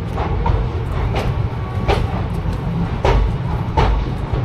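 Train rolling along, a steady low rumble with the clack of its wheels over rail joints, coming in two pairs.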